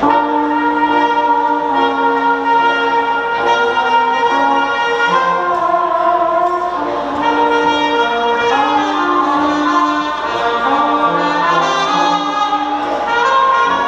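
Small brass band playing a tune with held, overlapping horn notes, starting suddenly at the very beginning.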